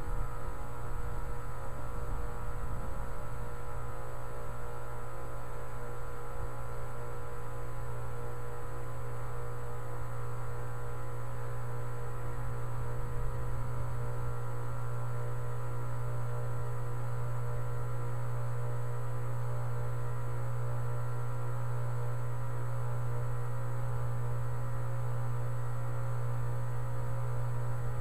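2010 Tempstar 3-ton heat pump outdoor unit running: a steady low hum with several fainter steady higher tones above it.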